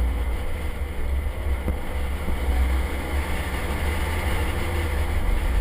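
Boat engine running steadily under way, a deep continuous rumble with a faint steady hum above it.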